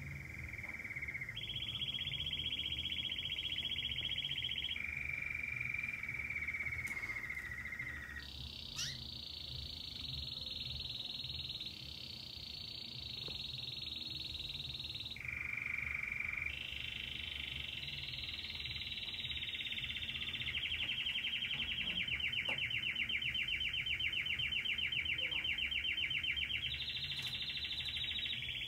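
Belgian canary singing a long unbroken song of rolling trills. Each phrase is one note repeated rapidly for one to four seconds, then the song jumps straight to a new pitch, higher or lower.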